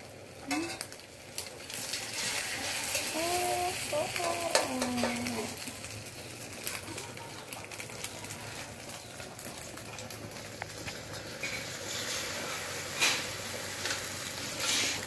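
Eggplant slices and egg frying in an aluminium wok on a gas burner, with a steady sizzle and sharp clinks of a metal spoon against the pan now and then.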